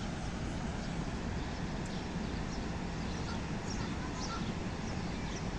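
Steady rushing roar of the Rhine Falls waterfall and river, with a few short bird calls over it in the middle and second half.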